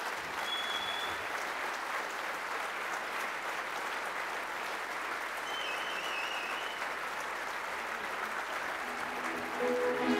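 Audience applauding steadily; music comes in near the end.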